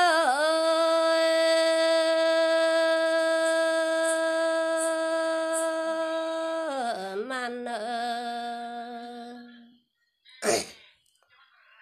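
A woman singing a Red Dao folk song in a long held note, gliding down to a lower note about seven seconds in and stopping near ten seconds; a single short sharp sound follows.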